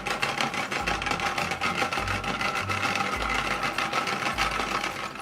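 Toy blender's small motor running with a fast, steady buzz, cutting off at the end.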